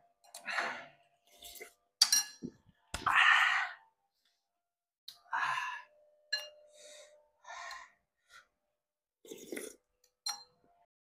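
Eating hot rice porridge: a metal spoon clinks against a porcelain bowl, and the bowl rings briefly after some strikes. Between the clinks come short, noisy slurps and puffs of breath blowing on the spoonfuls; the loudest is about three seconds in.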